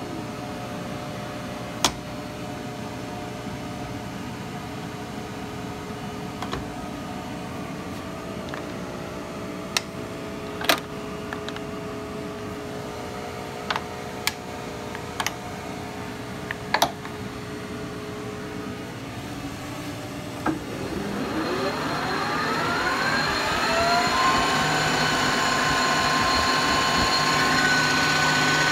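Lodge & Shipley metal lathe: at the start the spindle's whine falls away as it coasts down, and the drive hums steadily while gear-change levers are clicked and clunked about a dozen times. About 20 seconds in, the spindle is engaged with a clunk and its gears whine rising in pitch, then settle into a steady, louder run.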